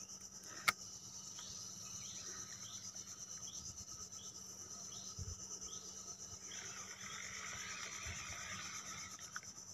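Insects droning steadily at a high pitch, with a spinning fishing reel being wound, giving a soft repeating rasp roughly every two-thirds of a second, and a single sharp click about a second in.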